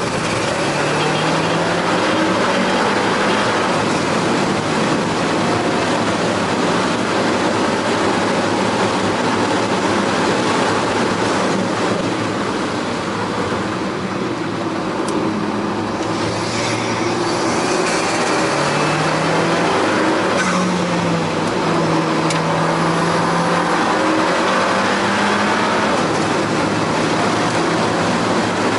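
Alfa Romeo 4C's turbocharged 1.75-litre four-cylinder heard from inside the cabin, pulling at full throttle with its pitch rising through the gears. It eases off for a corner around the middle, then accelerates hard again near the end.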